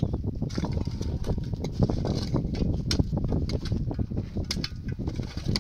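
Shovel and hoe blades scraping and chopping into dry, stony earth: a run of sharp scrapes and knocks over a steady low rumble.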